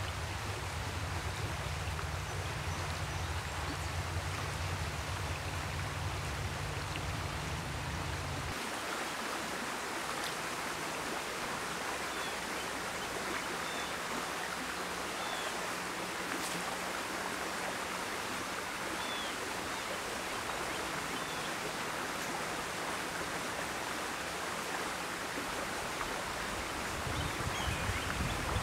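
Shallow stream flowing over stones, a steady rushing of water.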